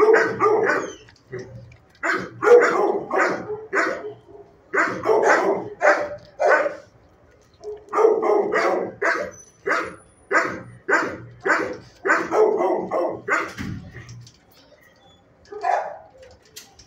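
Dog barking in runs of several quick barks, about three a second, with short pauses between runs.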